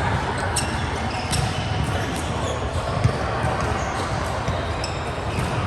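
Indoor volleyball play in a gym hall: scattered ball hits and bounces and short high squeaks of shoes on the court floor, over a steady din of voices and hall noise.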